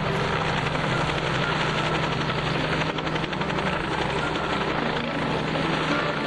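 Bell 47-type light helicopter hovering low, its piston engine and rotor running steadily with a fast, even chop.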